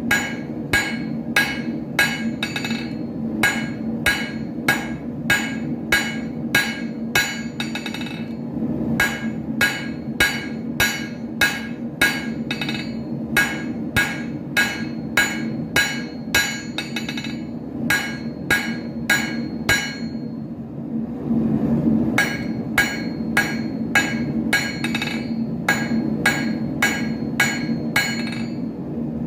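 Blacksmith's hammer striking iron on an anvil in a steady rhythm of about three blows a second, each blow ringing, while forging an arrowhead. About two-thirds of the way through the blows stop for a second or two, then resume. A steady low hum runs underneath.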